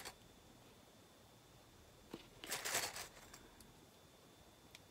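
Cork-fabric strap being handled: one brief rustle and scrape about two seconds in, starting with a small click; otherwise a quiet room.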